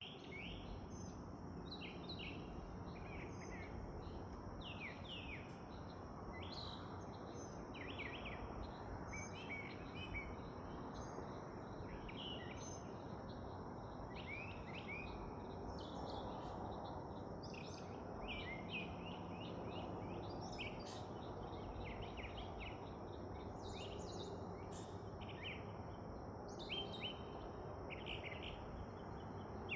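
Birds chirping, many short, high calls in quick runs throughout, over a steady background hiss.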